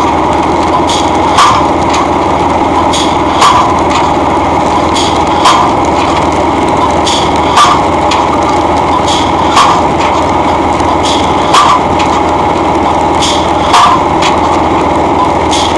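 A homemade twin-cylinder pneumatic pile-driving hammer pounding a treated wooden pole into packed sand and clay. It strikes about once every two seconds, seven blows in all, each a sharp crack followed by a heavier thud. A steady engine-like drone runs underneath.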